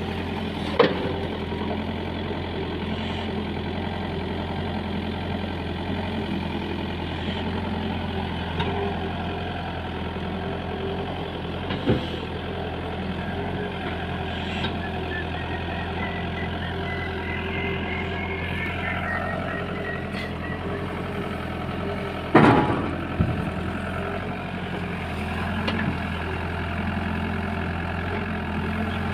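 Heavy diesel engine running steadily, with a few sharp knocks; the loudest comes about three-quarters of the way through. A faint high whine rises slightly through the middle.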